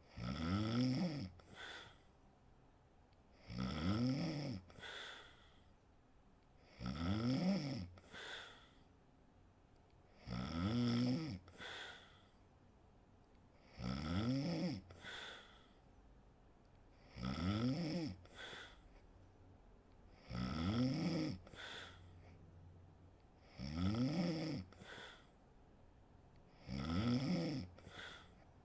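A sleeping woman snoring in a steady rhythm, about one snore every three and a half seconds. Each snore rises and then falls in pitch, and is followed by a short, quieter breath sound.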